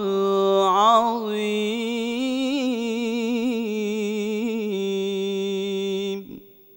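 A man reciting the Quran in melodic tajwid style, drawing out the closing phrase 'Sadaqallah' in one long, ornamented, wavering vocal line. It settles on a held note and stops about six seconds in.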